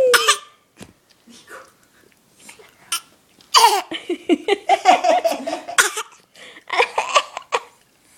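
A baby giving little put-on coughs for attention, mixed with laughter. A run of short coughs and laughs starts about three and a half seconds in and lasts a couple of seconds, and another short burst comes near the end.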